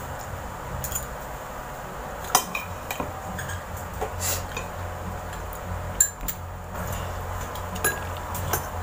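Metal spoon clinking and scraping against a plate and bowl while eating, a sharp clink every second or two at irregular moments, over a low steady hum.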